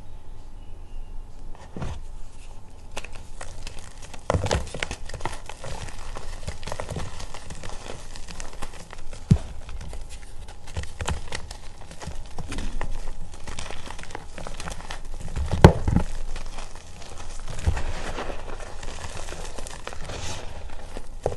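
A disc of reformed gym chalk being crushed and crumbled between fingers: dry crunching and crackling as it breaks into powder and lumps, with a few sharper snaps, the loudest about nine and sixteen seconds in.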